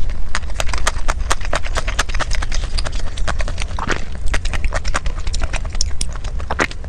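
Close-miked chewing of food: a steady run of sharp, crisp clicks and crunches, several a second.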